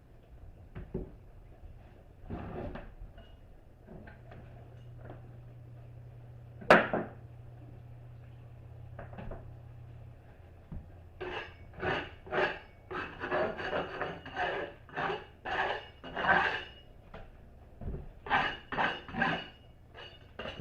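Hard objects being handled and set down: a faint low hum, one sharp knock about seven seconds in, then a long run of short clattering knocks and rubbing in the second half.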